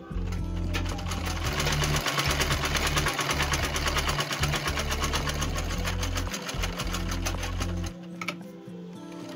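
Treadle sewing machine stitching lining over a zip: a fast, even clatter of needle strokes that starts just under a second in and stops about eight seconds in.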